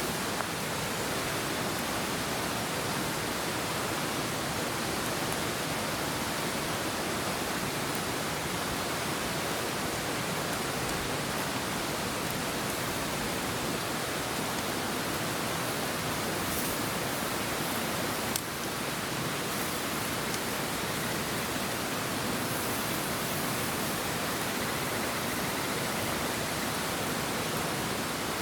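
Steady, even hiss of noise with one sharp click about 18 seconds in.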